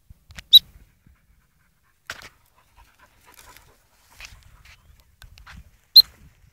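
A dog whimpering and panting, with two sharp high-pitched cries, one just after the start and one near the end.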